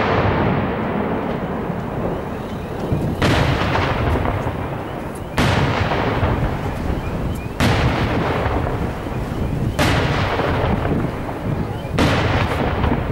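Aerial firework shells bursting overhead: five loud bangs about two seconds apart, each followed by a long rolling echo.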